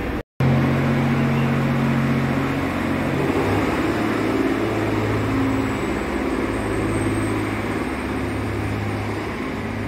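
GV-E400 series diesel-electric railcar pulling away from the platform, its diesel engine running under load with a steady low drone. The engine note shifts in pitch about three seconds in and holds there as the train draws off.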